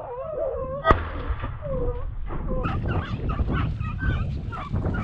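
Podenco hounds giving tongue on a running rabbit: repeated wavering, high yelping cries that grow busier toward the end. A single sharp bang about a second in is the loudest sound.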